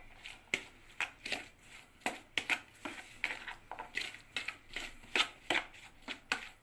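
A spoon stirring a wet mixture of boiled corn, chopped peppers and tomato in sauce in a bowl: quick, irregular strokes, two or three a second.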